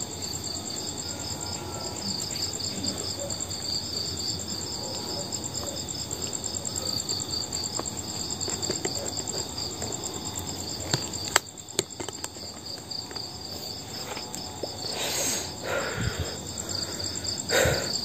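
A steady chorus of night insects: high, finely pulsing trills that hold on without a break. A few sharp clicks come in the middle and short rustles near the end.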